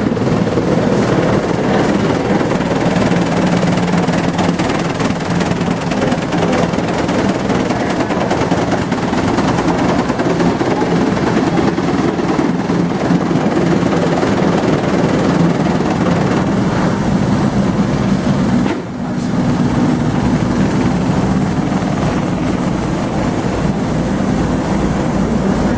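Cleveland Vibrator BT-1648-FA-1696 vibratory belt conveyor table running, its belt and rotary electric vibrator motors giving a loud, steady mechanical hum and rattle. The sound dips briefly about nineteen seconds in.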